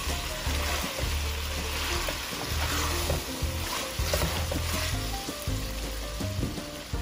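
Chicken, potato and bell-pepper pieces sizzling in a hot metal pot while a slotted spatula stirs and scrapes them around, in irregular strokes.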